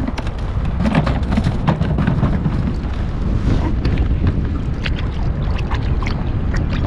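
Wind buffeting the microphone with a steady low rumble, over irregular small splashes and clicks of water slapping against a kayak hull.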